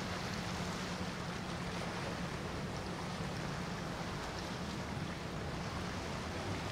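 Motor yacht passing at speed: a steady low drone of its engines under the rush of its bow wave and wake.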